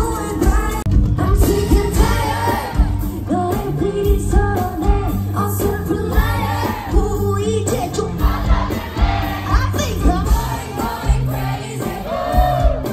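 Live pop song played loud over a concert PA: a woman singing over a band backing with a steady beat.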